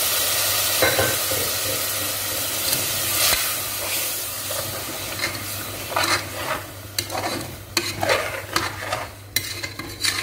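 Spiced mutton masala sizzling in a pressure cooker pot, its cooking water just poured onto the hot masala, with the hiss fading over the first few seconds. From about six seconds in, a slotted steel ladle stirs the gravy, scraping and knocking against the pot in quick, uneven strokes.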